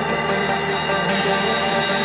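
Background music with sustained, layered chords.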